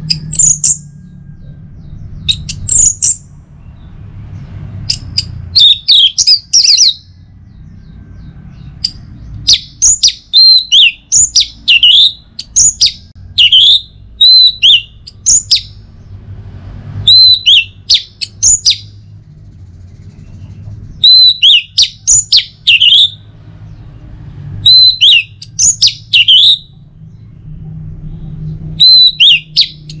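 Orange-headed thrush singing: bursts of rapid, sweeping, high whistled notes, one burst every few seconds with a longer run in the middle, over a faint low hum.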